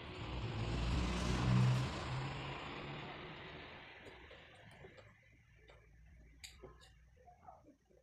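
A motor vehicle passing by: its engine and road noise swell to a peak about a second and a half in, then fade away over the next few seconds. A few faint clicks follow.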